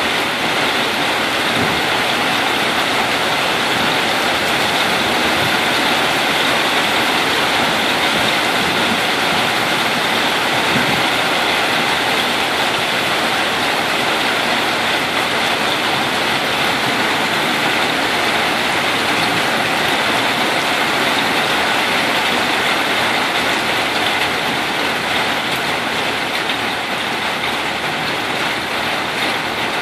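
Heavy thunderstorm rain pouring steadily onto pavement, a dense even hiss that softens slightly in the last few seconds.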